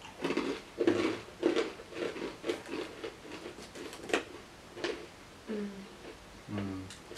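Close-up crunching and chewing of a crunchy cheddar snack, in irregular crackly bites, with two short hums near the end.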